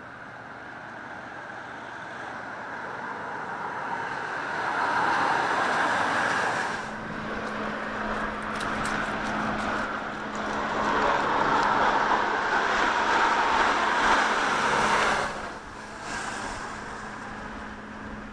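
Road traffic: cars passing on an adjacent road, the sound swelling and fading, loudest about five seconds in and again from about eleven to fifteen seconds in.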